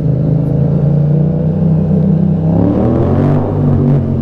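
Motorcycle engine running while riding at low speed. The revs climb for a moment about two and a half seconds in, then settle.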